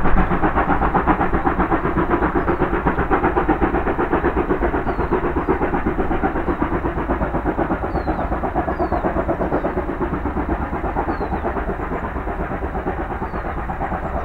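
Steam locomotive exhaust beats, a fast even chuffing about five a second, slowly fading as the train pulls away.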